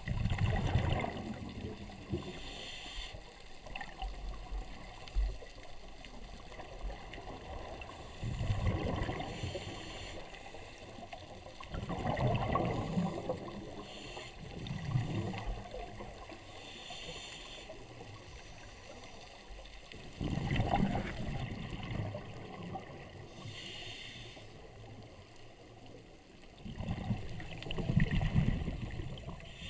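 Scuba regulator breathing heard underwater: exhaled bubbles gush out in about five rumbling bursts several seconds apart, with shorter hissing breaths drawn through the regulator in between.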